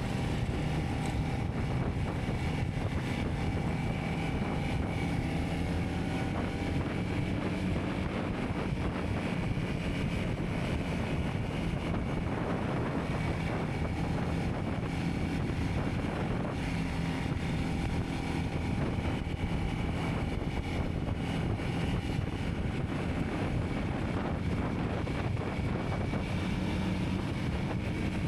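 Vehicle engine running steadily while driving, with wind noise on the microphone.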